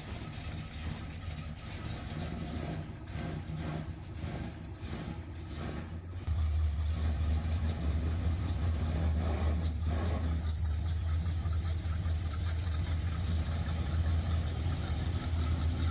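A vehicle engine running steadily, getting louder about six seconds in, with a few short knocks before that.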